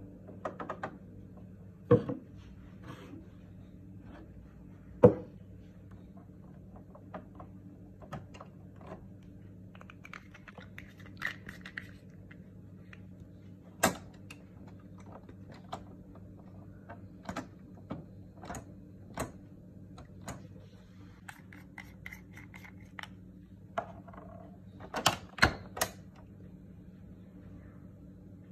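Hard plastic clicks and knocks from a Canon Pixma G3420's ink-tank refill caps being pressed shut and flipped open and an ink bottle being handled. They are scattered throughout, with louder knocks about two and five seconds in, another near fourteen seconds, and a quick cluster around twenty-five seconds, over a steady low hum.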